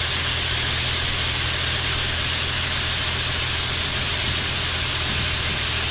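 Grain bin equipment running steadily during corn loading: a low, even hum under a strong steady hiss, with no change in speed.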